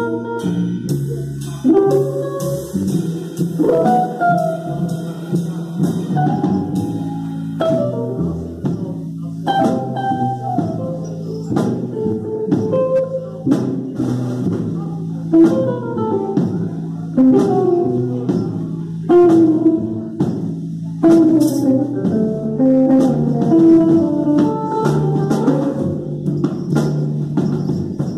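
Small jazz band playing live: hollow-body electric guitar playing melodic lines over upright bass and drum kit, with frequent snare and cymbal hits.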